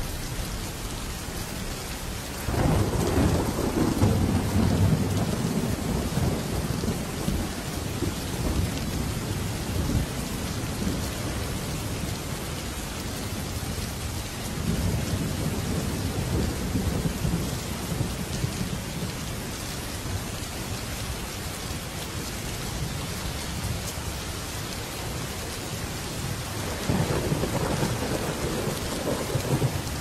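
Steady rain with rolls of thunder over it: a long low rumble starting a few seconds in, a weaker one around the middle, and another near the end.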